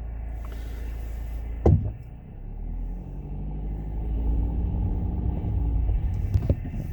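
Car running and rumbling, heard from inside the cabin, with one sharp thump about two seconds in; then the engine note rises and levels off as the car gets under way.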